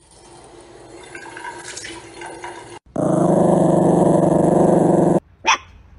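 A tap running into a sink, then, after a cut, a Yorkshire terrier growling loudly and steadily for about two seconds before the sound stops abruptly. A short bark follows near the end.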